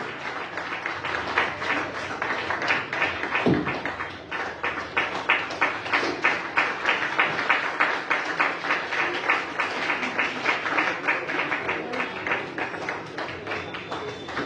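Audience applauding, with the claps falling into a fairly even rhythm of about three a second.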